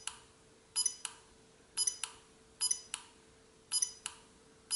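ChipSHOUTER electromagnetic fault injector firing its pulses into a microcontroller target about once a second. Each pulse is a short high beep-like chirp followed by a sharp click.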